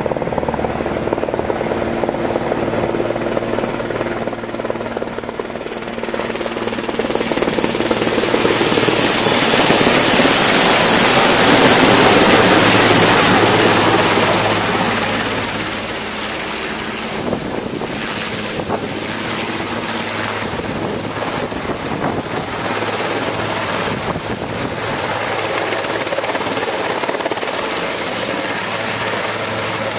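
Large helicopter flying overhead: its rotor and turbine noise swells to loudest about a third of the way in as it passes, then eases and carries on more softly as it moves away. A steady low hum runs underneath.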